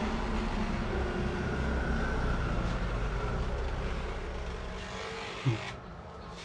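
A handheld electric massager buzzing steadily as it vibrates against the scalp. A short thump comes about five and a half seconds in, and the buzz then stops.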